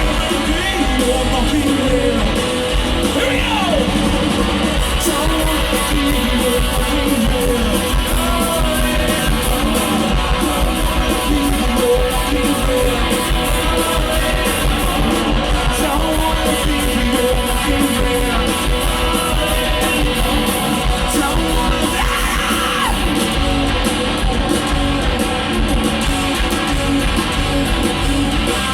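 Rock band playing live at full volume: distorted electric guitars and drums with yelled singing.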